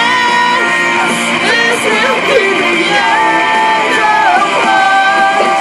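A rock song with guitar and sung vocals playing loudly, with long held sung notes.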